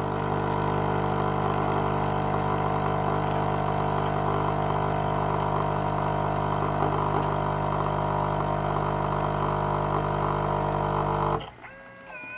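Nescafé Dolce Gusto Circolo capsule machine's pump buzzing steadily as it forces hot water through a milk capsule, streaming milk into the glass. It cuts off abruptly about eleven seconds in as the milk dose finishes.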